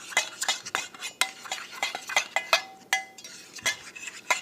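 A spoon stirring baking soda and contact solution in a container, tapping and scraping against its sides in quick irregular clicks, some with a short ring: mixing the slime activator.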